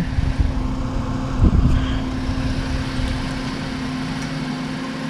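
A steady engine hum with a low rumble underneath that fades out about three and a half seconds in.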